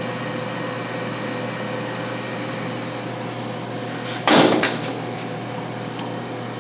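An equipment cabinet door under a stainless cleaning tank is pushed shut about four seconds in: a loud clatter followed quickly by a second knock. A steady machine hum runs underneath.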